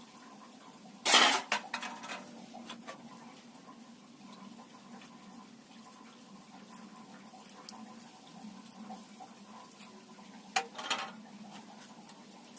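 Two shots from a Snow Wolf M24 bolt-action airsoft sniper rifle into a row of aluminium half beer cans, about nine seconds apart. Each is a sharp crack followed by a brief metallic clatter. Faint scattered clicks come between the shots.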